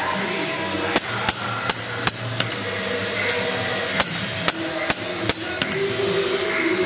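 Hand hammer forging a hot carbon-steel kukri blade on a steel anvil block: sharp metallic blows in two quick runs of about four strikes, with a pause of a couple of seconds between them.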